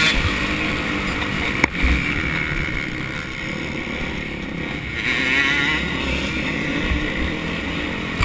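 Motocross dirt bike engine running hard under throttle, heard from the rider's helmet camera, its revs wavering and climbing again about five seconds in, with wind rush over the microphone. A single sharp knock about a second and a half in.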